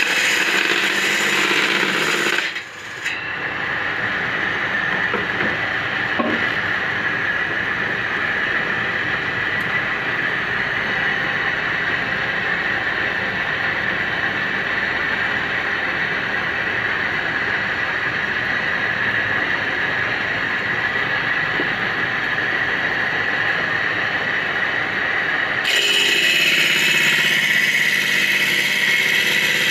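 Homemade bench-mounted circular saw running steadily with a high, even whine, its sound changing abruptly at about three seconds and again near the end.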